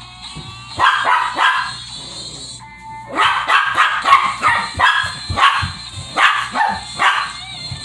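Small Shih Tzu barking in play: a few sharp barks about a second in, then a rapid run of barks from about three seconds in until near the end.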